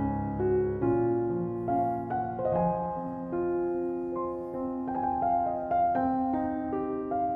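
Background piano music: a slow line of held notes over sustained low chords.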